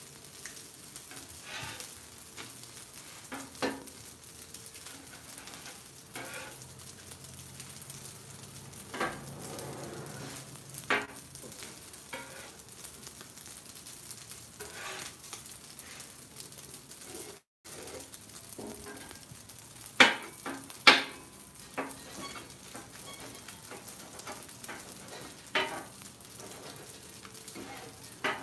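Eggs frying and sizzling on a Blackstone flat-top griddle while a metal spatula chops and scrapes them against the steel cooking surface. Sharp spatula clacks come every few seconds over the steady sizzle; the two loudest fall about a second apart a little past two-thirds of the way through.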